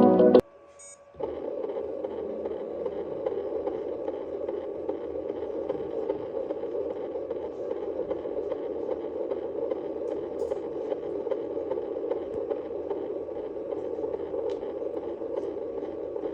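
Fetal heartbeat at 39 weeks of gestation heard through a Doppler fetal heart monitor: a steady, pulsing whoosh that starts about a second in.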